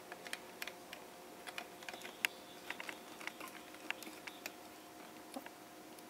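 Faint, irregular small clicks and taps of fingers twisting stripped wire ends and handling the wiring and battery spring contact inside an opened metal alarm clock.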